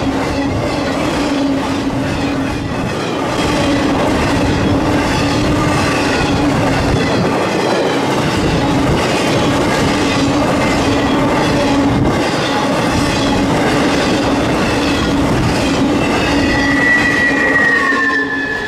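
Union Pacific intermodal freight train running past close by, with the steady noise of its wheels on the rails as the trailer-carrying flatcars go by. Near the end a single high, steady tone comes in and falls slightly in pitch.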